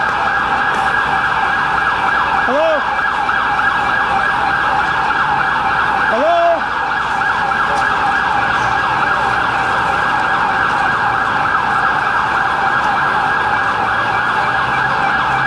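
Many emergency vehicle sirens wailing at once, a dense, steady wavering wall of sound. Two short rising-and-falling glides break through, about two and six seconds in.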